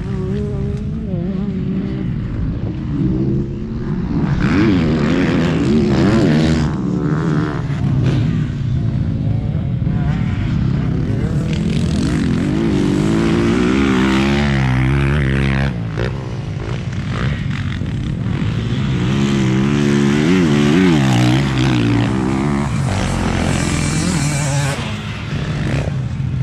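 Motocross bike engines revving on the track, their pitch swinging quickly up and down with the throttle in several waves as bikes come through.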